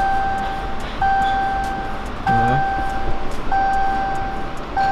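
A Dodge Charger Hellcat's dashboard warning chime repeating: a steady single tone about a second long, sounding again about every second and a quarter, while the car shows its 'vehicle not in park' warning and will not start. A brief falling sound comes in once near the middle.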